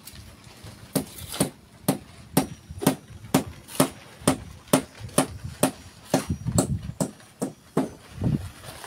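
Steady hammer blows at about two a second, each a sharp knock.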